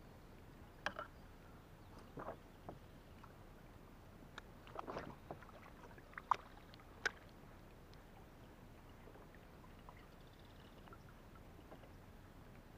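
A handful of short, sharp knocks and taps on a fishing kayak's hull as the angler shifts and handles his gear, spread over the first seven seconds and then stopping.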